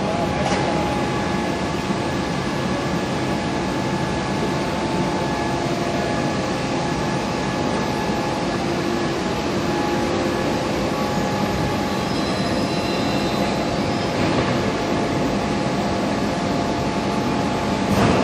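Heavy forging machinery running: a steady, dense mechanical noise with a few held whining tones and no distinct hammer blows.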